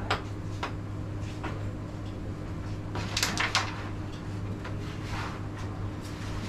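Carrom striker flicked across a wooden carrom board, with sharp wooden clicks as the striker and carrom men strike each other and the frame. The loudest is a quick cluster of clicks about three seconds in, over a steady low hum.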